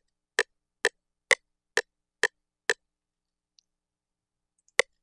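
FL Studio's software metronome clicking steadily at about two clicks a second. About three seconds in it stops for roughly two seconds, then starts again near the end. The clicks pass through a chorus effect on the metronome's mixer track, which sounds to the user like a weird delay.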